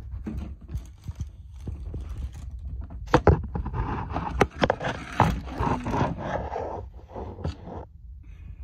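Dry cat biscuits being topped up: knocks and handling about three seconds in, then a dense rattle of kibble pouring and plastic rustling from about four seconds until it stops abruptly near the end.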